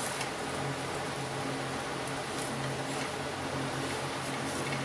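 Steady low hum and hiss in a home kitchen, with a few faint scrapes of a spatula lifting fried cutlets off a tawa.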